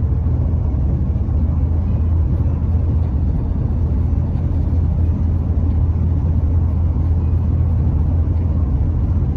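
Vehicle engine running with a steady low rumble.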